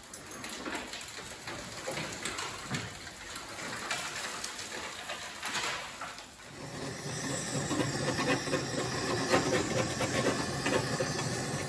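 Clicks, knocks and rattles as the 1970 MG Midget's bare body shell is turned on a rotisserie. About six seconds in, a steady hiss of a gas blowtorch flame played on the rusty floor takes over.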